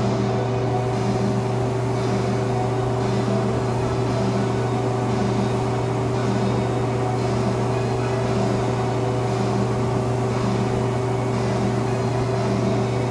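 A steady motor hum holds throughout. Over it, the air hiss of a paint spray gun swells and fades about once a second as paint is sprayed onto the car's body panel.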